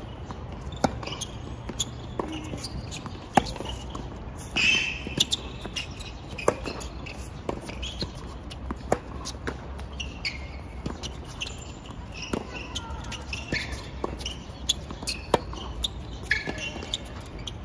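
Tennis balls being struck and bouncing: a sharp pop roughly every second, as in a rally, with short high squeaks in between.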